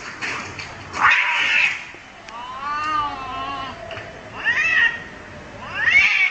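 A cat meowing repeatedly, about four calls, with a long drawn-out wail in the middle that rises and then falls in pitch.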